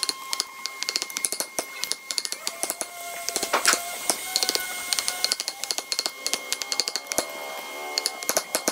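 Wooden mallet rapidly tapping a steel chisel as it chops into a hardwood block, wood splitting away in chips. Quick, sharp knocks come in runs of several a second with brief pauses.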